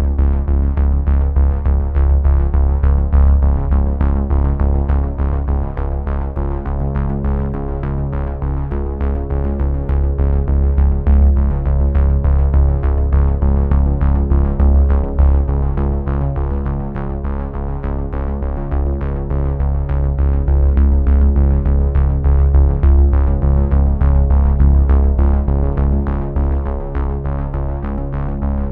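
Background synthesizer music: held chords over a heavy bass, with a steady pulse of sharp notes a few times a second.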